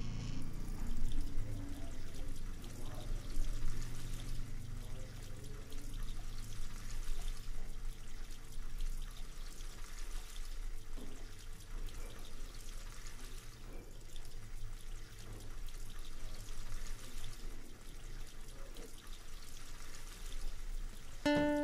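Water running and splashing at a kitchen sink, with faint clatter of things being handled at the counter. A plucked guitar note comes in near the end.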